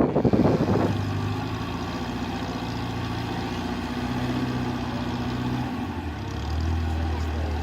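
Car engine running steadily; about six seconds in its note drops lower and grows slightly louder.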